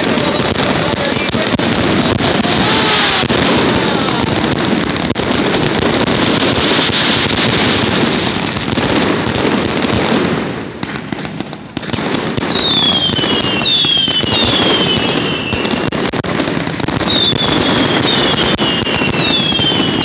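A fireworks display going off in a dense, continuous barrage of bangs and crackles, which eases briefly about halfway through. In the second half comes a run of short, high falling whistles.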